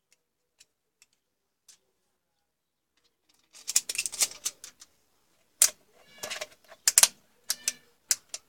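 Handling noise of a plastic digital multimeter. Faint ticks come first, then from about three and a half seconds a burst of rustling and clicking, followed by a few sharp, loud clicks and knocks.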